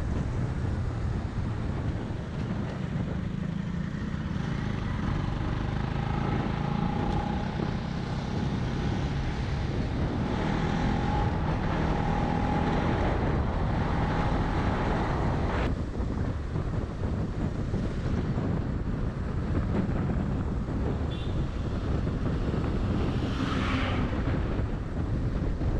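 Motorcycle running on the move, with heavy wind buffeting on the rider's microphone; a sharp click comes about two-thirds of the way through.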